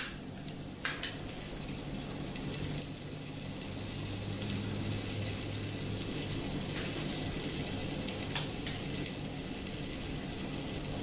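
Butter melting in a hot nonstick pan, a steady sizzling hiss that grows slightly louder, with a faint low hum underneath.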